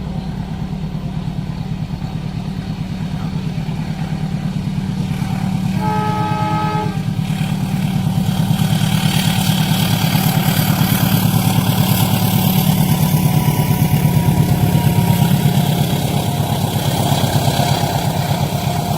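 A train at a level crossing: a heavy engine throbs steadily, and a horn sounds one chord for about a second. Then a rushing rail and wheel noise builds up and stays loud.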